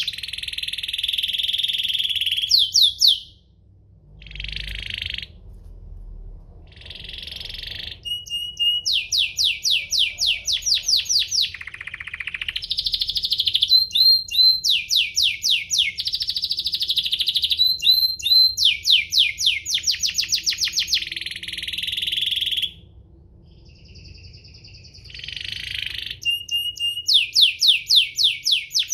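Domestic canary singing a long song of fast rolling trills, runs of rapidly repeated high notes alternating with buzzy, harsher passages, broken by two short pauses.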